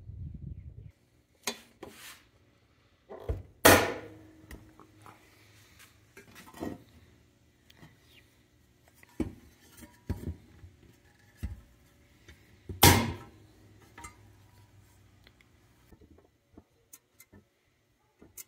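Parts of a pressed-steel Tonka toy pickup being fitted together and set down on a wooden workbench: scattered clicks and knocks of metal and plastic, with two louder knocks about four seconds in and near thirteen seconds.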